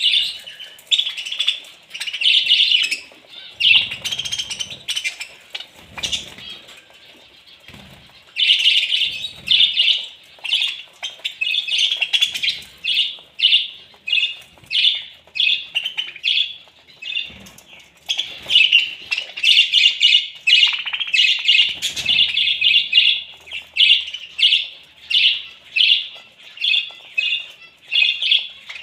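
A flock of budgerigars chattering: a dense, steady run of short chirps from many birds at once, with a lull about six seconds in and a few dull thumps.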